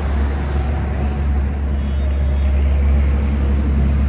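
A motor vehicle engine running steadily at idle: a loud, even low rumble with traffic noise over it.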